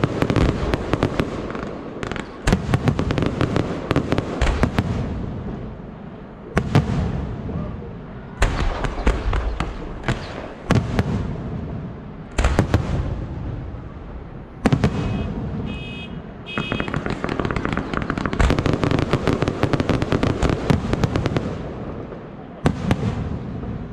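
Aerial firework shells bursting overhead in volleys of sharp bangs and dense crackling, with short lulls between volleys.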